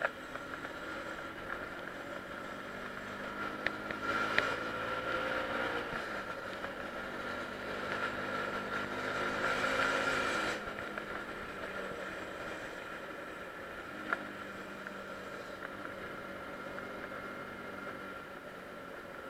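Small motorcycle engine running under way, its pitch climbing under throttle twice, the second time louder, then dropping off suddenly about halfway through as the throttle closes.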